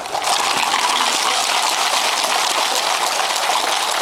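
Many pebbles rattling inside plastic soda bottles, a group of homemade stone shakers sounding together. It is a dense, steady rattle made of countless fine ticks.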